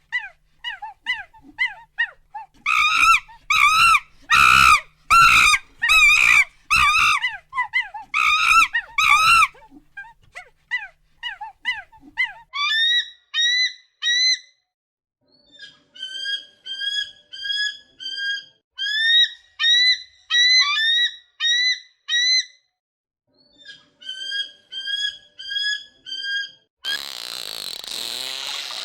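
An animal calling over and over in short, pitched chirps. A loud run of about nine calls comes a few seconds in, followed by quicker, higher chirps in groups of several. Near the end a steady rushing noise takes over.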